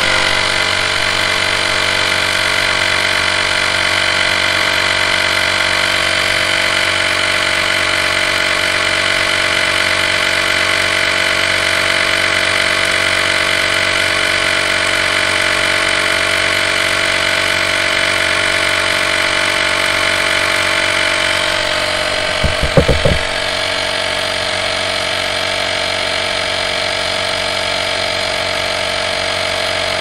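Cordless rechargeable electric tyre inflator (portable air compressor) running steadily and loudly as it pumps air into a car tyre. A few knocks come a little over twenty seconds in, after which it runs on slightly quieter.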